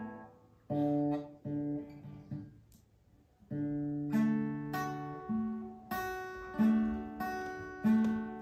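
Acoustic guitar playing a few chords, then pausing briefly about three seconds in. It then settles into a steady pattern of chords, about one every two-thirds of a second.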